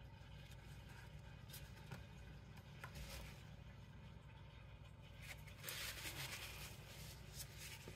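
Near silence: low room hum with a few faint clicks, and a soft rustling hiss about five seconds in.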